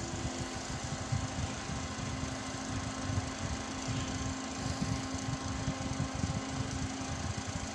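Noctua NF-P12 redux 120 mm case fan running steadily at medium speed, blowing through a handheld vane anemometer held close to its face. It gives a steady hum with an irregular low chatter that comes from the anemometer at the higher fan speeds, not from the fan.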